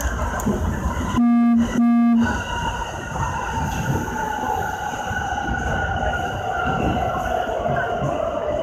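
An electric train sounds its horn in two short blasts about a second in, each a buzzing single note lasting about half a second, over the low rumble of a train running through a station. After the blasts a whine from the train slowly falls in pitch.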